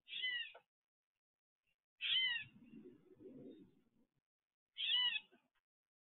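Blue jay calling: three short jeer calls, each about half a second, two to three seconds apart. A low muffled noise follows the second call.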